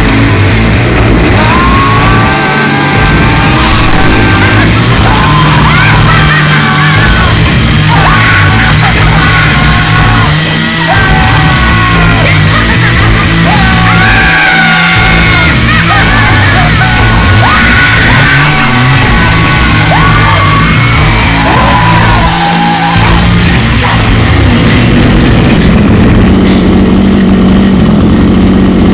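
Loud rock music with a voice yelling over it.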